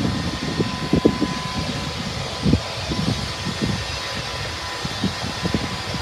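Diesel locomotive running as it approaches slowly, its engine hum mixed with gusty wind buffeting the microphone.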